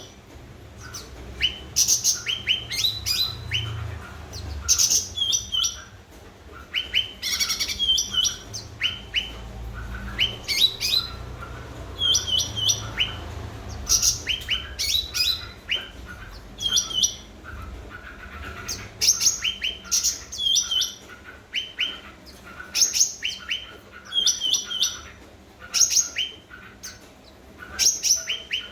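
Cucak ranting songbird singing vigorously: short, sharp chirping phrases of quick high notes, repeated every second or two with brief pauses between them.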